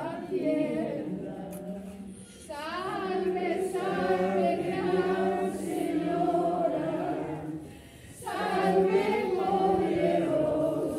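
A crowd of people singing together without instruments, in long held phrases with short pauses for breath about two seconds in and about eight seconds in.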